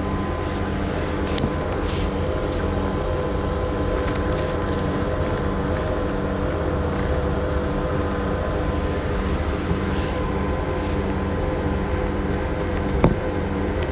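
City route bus's diesel engine running steadily at idle, with an even low hum and no revving. There is a single sharp click near the end.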